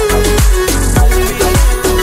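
Background music with a steady electronic beat: a kick drum about twice a second under a bass line and a short repeating melody.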